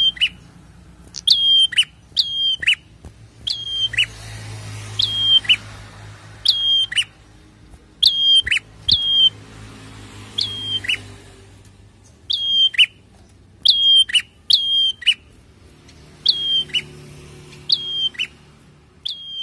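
Caged prenjak calling over and over, loud and sharp, about once a second and often in pairs. Each call is a high note that drops into a brief held whistle, then a quick downward slur.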